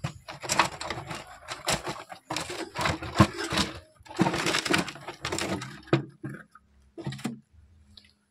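Irregular clattering and knocking of hard objects being handled: a dense run of sharp cracks and knocks that thins out about seven seconds in.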